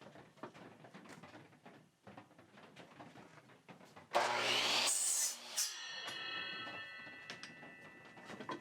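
Light taps and clicks of wood being handled. About four seconds in, an electric saw starts and cuts through the wood for about a second and a half, then is switched off and spins down with a ringing whine that slowly fades.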